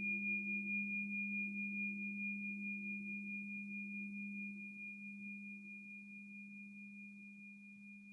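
Crystal singing bowl ringing out and slowly fading. It holds one steady low tone with a faint high overtone above it, and the sound wavers with a gentle, even pulse.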